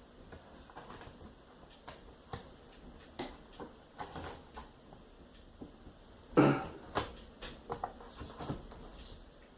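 Scattered small clicks and taps of hands handling the laptop's plastic screen assembly and parts, with one louder knock about six seconds in.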